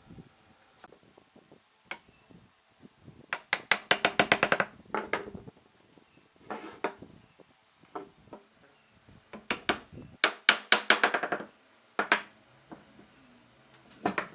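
Hammering on wood: fast runs of sharp knocks, several strikes a second, in three main bursts with single knocks between.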